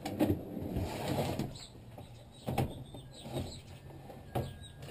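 A truck-bed storage drawer sliding shut and a hard plastic carrying case being handled on the tailgate, with scraping through the first second or so, then several separate sharp knocks and clicks.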